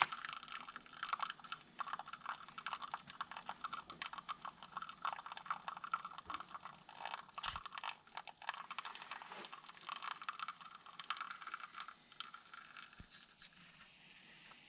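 Old RR45 espresso grinder with 64 mm burrs crunching coffee beans at a slow 800 RPM, its PSC motor driven from a VFD: dense irregular crackling over a faint steady motor hum. The crackling thins out near the end as the beans run through, leaving a soft hiss.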